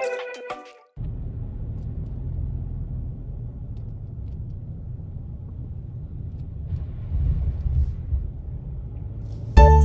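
A steady low rumble, with no distinct drips, knocks or voice in it. Music fades out at the start, and music starts again abruptly just before the end.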